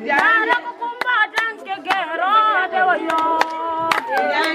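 Women's voices singing unaccompanied, some notes held long, with sharp hand claps cutting in every half second or so.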